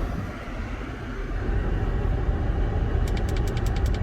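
Steady low rumble of a car, with a quick, even run of sharp clicks, about eight a second, starting about three seconds in.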